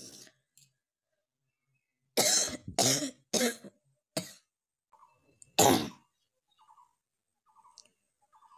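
A person coughing: four coughs in quick succession, the fourth weaker, then after a short pause one louder cough.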